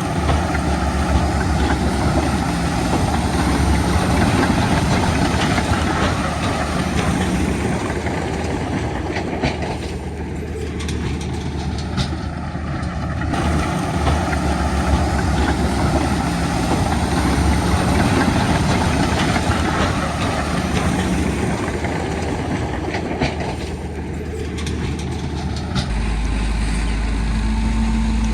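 Heavy earthmoving machinery's diesel engine running under work, swelling and easing in loudness, with occasional clanks.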